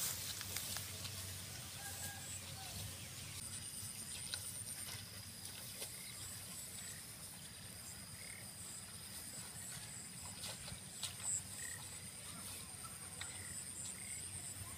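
Faint open-field ambience: a high, rapidly pulsing trill sets in a few seconds in and runs on steadily, with a few short chirps over a low rumble.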